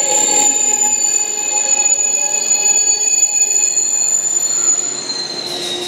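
Gwangju Metro 1000 series electric train braking into a station: a loud, high-pitched steady squeal with several lower tones, and a whine falling in pitch in the first second as the train slows. The squeal stops near the end as the train comes to rest.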